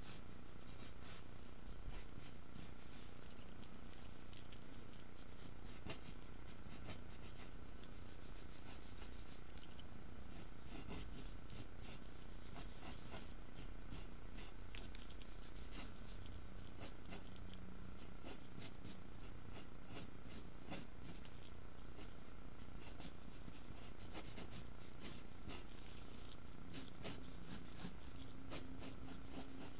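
Pencil scratching on paper in many short, quick sketching strokes. A faint steady high-pitched whine runs underneath.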